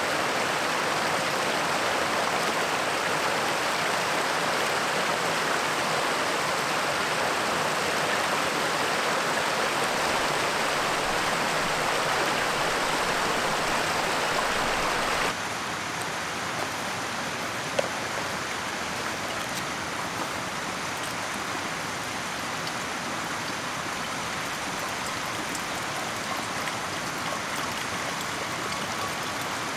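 Small rocky mountain stream running, a steady rush of water. About halfway through it becomes quieter and stays steady, with a single short click a little later.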